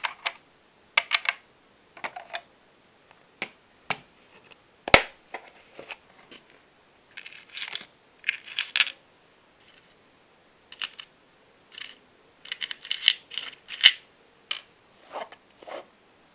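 Steel tweezers and small metal engine-kit parts clicking and tapping against a plastic parts tray and a metal tin in scattered, irregular taps, with one sharper click about five seconds in. Short bursts of rustling come from foam padding being lifted out of the tin.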